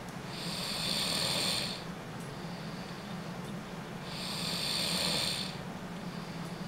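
A man snoring in his sleep: two long snores, each about a second and a half, roughly three and a half seconds apart, over a steady low hum.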